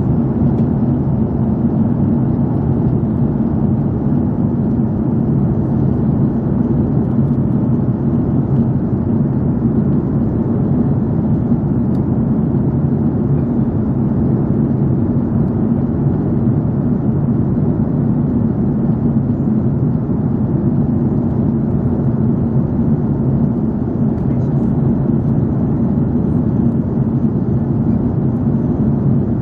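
Airbus A330-300 cabin noise in flight, heard from a window seat over the wing: a steady low rumble of engines and airflow with a faint hum, unchanging throughout.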